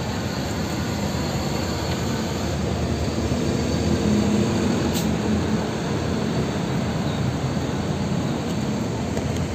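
Diesel engine of a large intercity coach bus running as the bus pulls out and drives close past, its hum swelling to loudest about four seconds in, over the general rumble of other buses.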